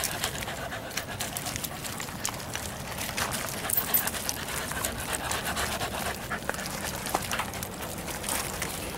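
A dog panting close up, with scattered light rustles and taps.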